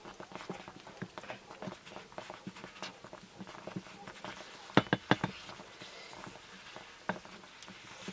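Wooden spoon stirring in a clay pot, with frequent small clicks and scrapes and a quick run of about four loud knocks about five seconds in, then one more near the end, as the spoon raps the pot's rim.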